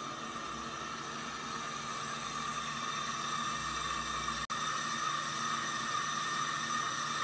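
Metal lathe running steadily while a boring bar bores out a cast Caterpillar 342 water pump housing: a steady hiss with a higher steady tone in it, breaking off for an instant about halfway through.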